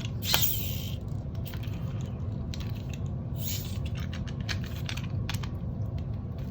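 Scattered light clicks and brief rustles of small metal hardware and materials being handled, over a steady low hum.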